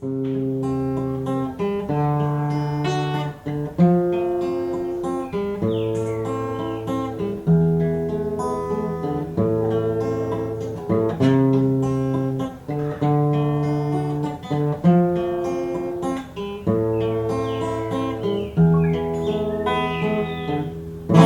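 Solo acoustic guitar played as a song intro: strummed and plucked chords that change every second or two at a steady tempo.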